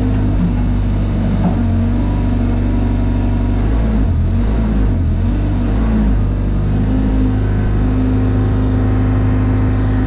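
Broderson IC-35 carry deck crane's engine running steadily while its hydraulic controls are worked to lower the boom. The pitch dips and wavers briefly around the middle, then a tone steps up and holds.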